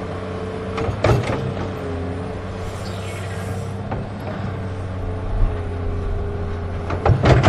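Electric motors of a Huina 1580 RC excavator whining steadily as it digs and swings its bucket, the pitch shifting a little. Clattering knocks of dirt and stones come about a second in and again near the end.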